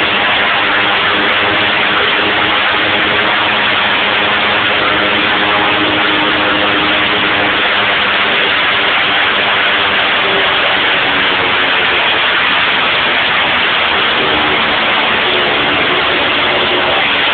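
Pratt & Whitney PT6 turboprop engine running steadily on a ground run-up: a loud, even noise with faint steady tones, no change in power.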